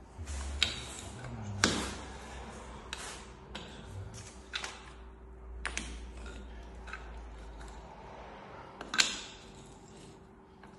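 Irregular sharp knocks and clicks from hand work on a mosaic parquet floor repair, the loudest about a second and a half in and near the end, over a faint steady hum.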